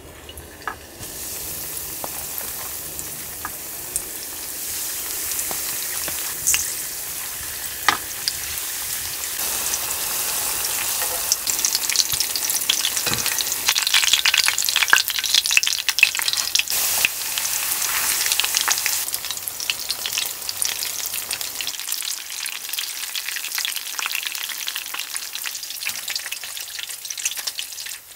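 Breaded shrimp deep-frying in hot oil in a small pot on a portable gas stove: a dense, crackling sizzle that starts about a second in as the shrimp goes into the oil. It is loudest in the middle and eases toward the end.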